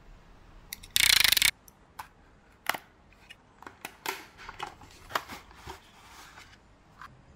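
Cardboard retail box of a Samsung 870 EVO SSD being opened by gloved hands. There is a loud half-second rasp about a second in, then a run of short scrapes and taps as the inner tray slides out of the outer sleeve.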